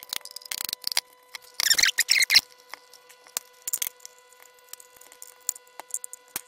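Handling noise from a hard plastic multimeter case and small hand tools on a workbench: scattered clicks and knocks, with a denser rustling clatter about two seconds in, as the screwdriver is set down and the case is worked open. A faint steady tone hums underneath.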